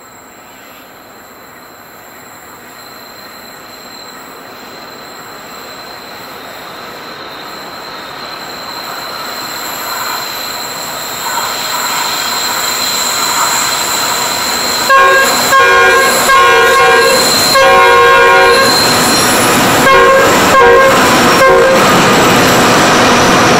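Pacific National NR class diesel-electric locomotives hauling a freight train, approaching and growing steadily louder. In the last several seconds, as the locomotives pass close by, the horn sounds in a series of short blasts. A high, steady squeal of steel wheels runs underneath.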